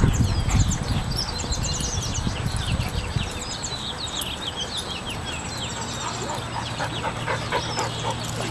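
Small birds chirping over and over, with a low rumble in the first few seconds.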